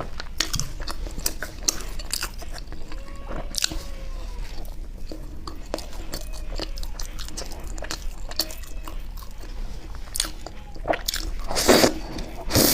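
Close-miked biting and chewing of chocolate ice cream bread: a steady run of small wet mouth clicks and crunches, with a louder, longer crunching burst near the end.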